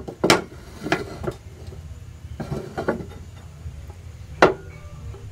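A nonstick frying pan knocking against the gas stove's grate as it is tilted and shifted to swirl the heating oil: half a dozen short knocks and clinks, the loudest about four and a half seconds in, over a low steady rumble.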